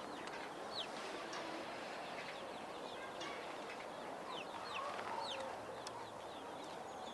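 Songbirds chirping and singing in the trees: many short, high chirps that fall in pitch, from several birds, over a faint steady hiss.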